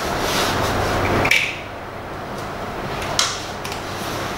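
Hand tools being handled: a steady rushing noise ends in a sharp click about a second in, and a second sharp knock comes near three seconds.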